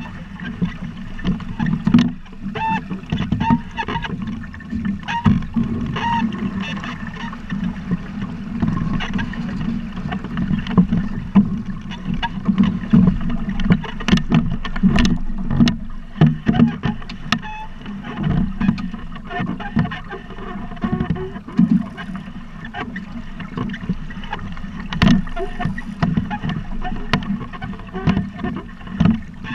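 Water rushing and slapping against the hull of a Buccaneer 18 sailing dinghy under way, a steady rough wash with irregular knocks and slaps throughout.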